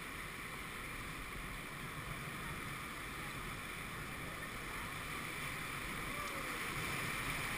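Whitewater river rushing steadily around a rowing raft, with wind buffeting the microphone; the rush grows a little louder toward the end as the raft nears rapids.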